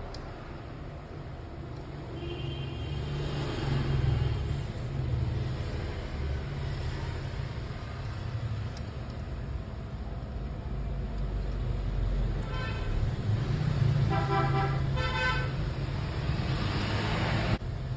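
Road traffic rumbling steadily, with a few short vehicle horn toots: one early on, and a cluster of several more in the second half.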